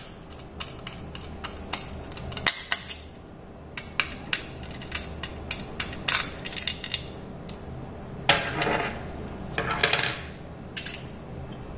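Small metal clicks and taps of a screwdriver working the magnet loose from a laptop hard drive's base, with a couple of longer scraping sounds about two-thirds of the way through.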